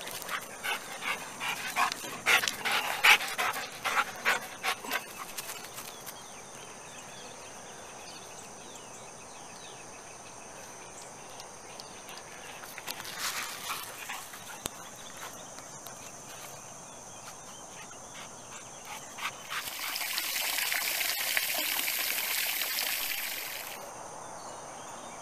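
A dog moving and panting close by, with sharp clicks and knocks over the first few seconds. Then a quiet outdoor background with a faint steady high hum, and near the end a louder hiss for about four seconds that cuts off suddenly.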